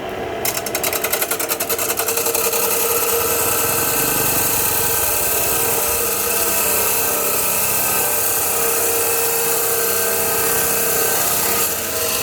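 Metal cut-off saw with a 3 HP motor and a 40 cm wheel cutting steel: a harsh grinding hiss over the motor's steady whine. The hiss is uneven for the first couple of seconds as the wheel bites, then steady, and it stops abruptly near the end while the motor keeps running more quietly.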